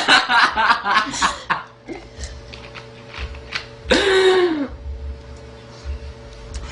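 A girl's loud belch, under a second long with a low pitch that falls away, about four seconds in, after a second or so of voices and chuckling.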